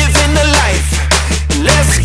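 Hip-hop backing music with a heavy sustained bass and a steady drum beat, with vocal lines sliding up and down.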